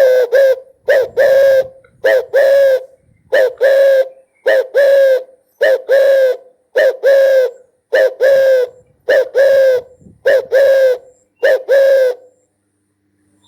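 Spotted dove cooing: a long run of short coos in pairs, about one pair a second, eleven pairs in all, stopping shortly before the end.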